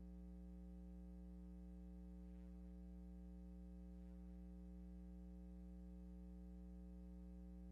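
Near silence: a steady, low electrical hum in the audio feed.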